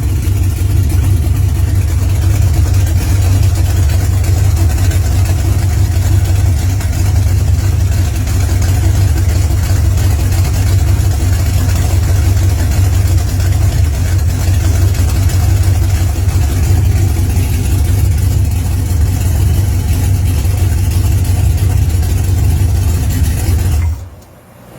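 Pickup truck engine running steadily, a loud low rumble with no revving, cutting off abruptly near the end.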